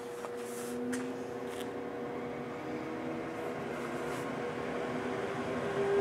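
Milestone Ethos 900 microwave digestor running just after being switched back on: a steady fan hum with a couple of held tones, and a few faint clicks in the first two seconds.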